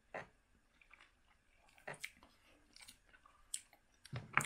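People chewing and biting barbecued meat eaten by hand: scattered short mouth clicks and smacks, with a louder cluster near the end.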